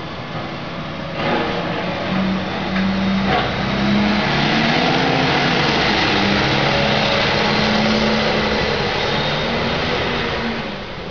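A vehicle engine growing louder and then fading away over several seconds, with a rushing hiss over it.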